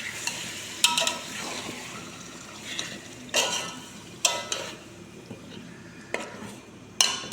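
Marinated chicken sizzling in hot oil in a pot while a metal spoon stirs it, scraping and knocking against the pot about five times.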